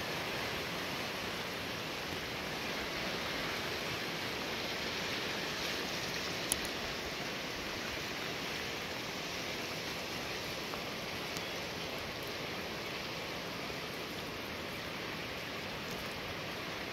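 Steady rushing hiss of rain and swollen floodwater from a river in spate, with one brief sharp click partway through.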